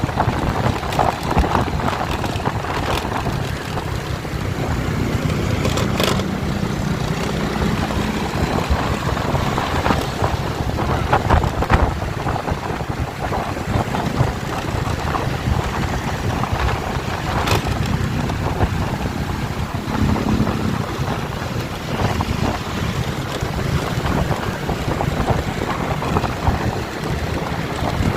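Wind buffeting the microphone over a steady low rumble, with a few brief clicks.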